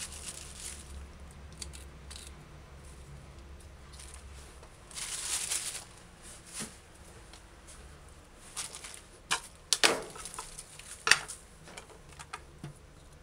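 Hands handling things on a kitchen countertop: a brief rustle about five seconds in, then a few light knocks and clicks in the second half.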